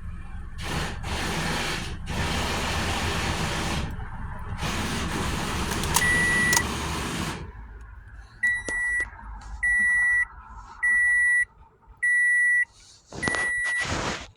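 Rustling handling noise for about the first seven seconds, then six short high electronic beeps, about one a second, the fifth louder than the rest.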